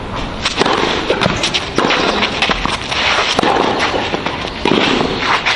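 Tennis rally on a clay court: a serve and the following exchange, heard as a string of sharp racket-on-ball hits.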